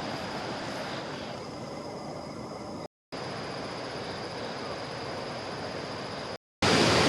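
Steady outdoor background noise with a faint high steady tone, cut off to dead silence twice for a moment, coming back louder after the second break.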